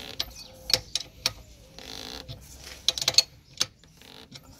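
Screw-type tractor tyre bead breaker press being tightened with a wrench: scattered sharp metal clicks, a cluster of them about three seconds in, and a short rasping scrape about two seconds in.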